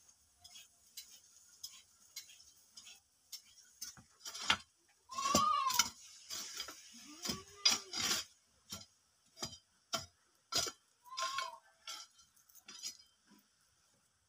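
Kodal (spade-hoe) blade chopping and scraping packed dirt in a run of short, sharp strokes. An animal calls over it: a high rising-and-falling call about 5 s in and again near 11 s, and a lower call around 7.5 s.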